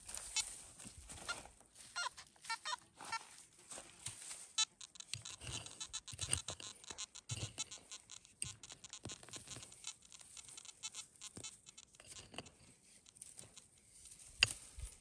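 A small hand pick chopping into dry, hard soil, with irregular strikes and scraping as the earth is loosened and pulled aside.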